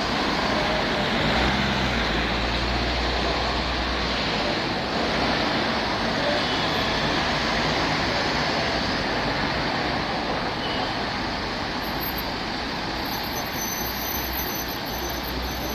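Steady road traffic noise as cars and a box van drive past close by, with a deeper engine rumble in the first few seconds.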